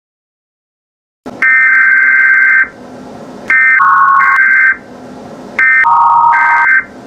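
Emergency Alert System header tones: three loud screeching data bursts, each about a second long, separated by static hiss, after about a second of dead silence.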